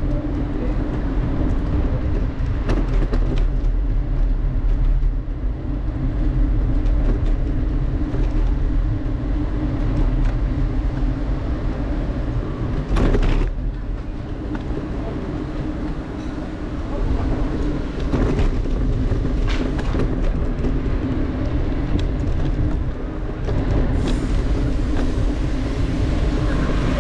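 Subway train running between stations: a steady low rumble under a constant hum, with scattered clicks and one sharper knock about halfway through.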